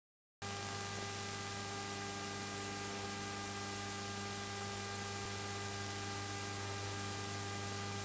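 Steady electrical hum and hiss in the keyboard's audio line with no notes playing. It starts abruptly about half a second in and does not change.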